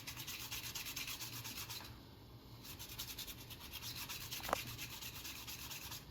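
Fast, rhythmic scrubbing on a power supply circuit board, cleaning leftover solder flux off the fresh joints. The strokes break off briefly about two seconds in, and there is a small tick past four seconds.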